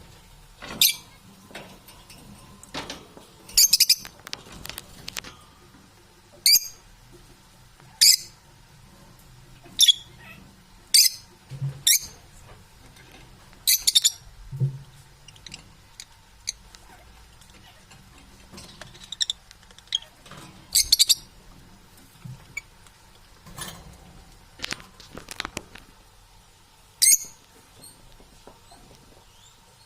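Parrot giving short, sharp, high-pitched calls about every one to two seconds, with a few soft knocks in between.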